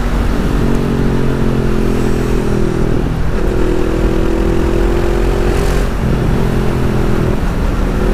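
Honda CB 500F parallel-twin motorcycle with a Jeskap aftermarket exhaust running at steady riding speed, its catalytic converter still fitted. The engine note holds steady and dips briefly a few times, under heavy wind rumble on the microphone.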